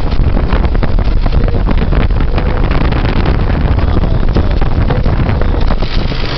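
1998 Dodge Durango's 5.2-litre V8 running at idle, heard close up in the engine bay, with a fast, irregular clatter of ticks over the engine's rumble. The ticking is the strange knock the owner is hunting, which he says is not an injector.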